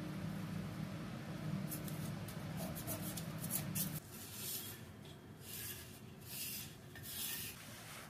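Pencil scratching lines on tile along a straightedge level, in about four short strokes in the second half. Before that, a steady low hum stops abruptly about four seconds in.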